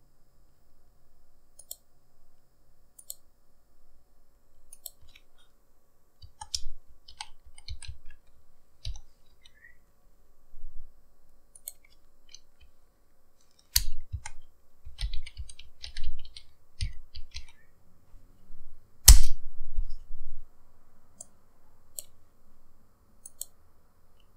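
Typing on a computer keyboard and clicking a mouse, in irregular bursts of keystrokes, with one louder sharp click about three-quarters of the way through.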